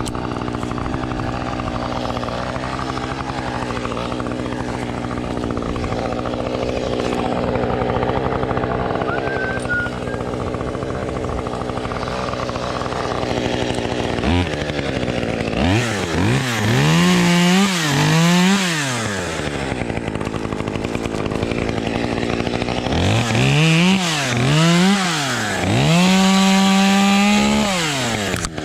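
Two-stroke chainsaw idling steadily, then, from about halfway, revved up and down in a series of quick blips, held at high revs for a couple of seconds near the end.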